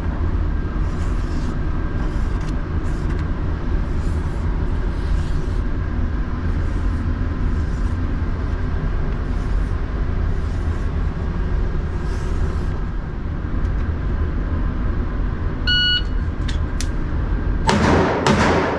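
Steady low rumble of the indoor range's ventilation, with faint scratchy strokes of a marker on the paper target. About 16 s in there is a single short electronic beep from the shot timer, and in the last second a loud, dense burst of sound comes in.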